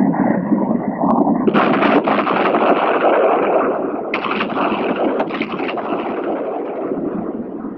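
Bombs exploding on the ground: a continuous rumble of blasts that jumps louder and harsher about a second and a half in and again about four seconds in.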